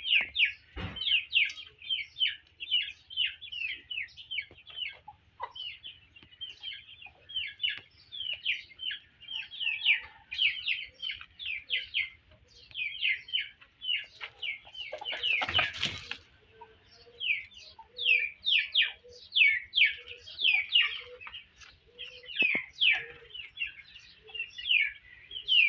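Continuous high chirping: many short chirps a second, each sliding downward in pitch. Soft low clucks come in during the second half, and there is a brief rustle about halfway through.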